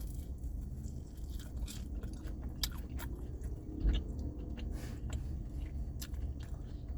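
Close-up biting and chewing of a crunchy battered Korean corn dog dipped in ranch sauce, with irregular crisp crunches and mouth clicks. A steady low hum sits underneath.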